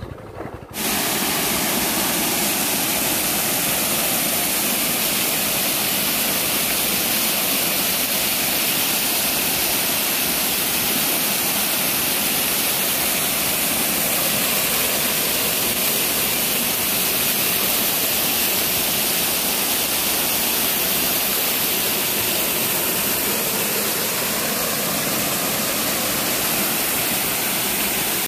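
Waterfall cascading over rock: a loud, steady rush of water. It starts abruptly about a second in and cuts off suddenly.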